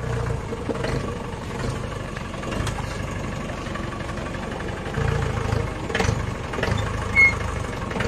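Four-wheel-drive jeep engine running at idle, swelling briefly about five and six seconds in, with a short high chirp a little after seven seconds.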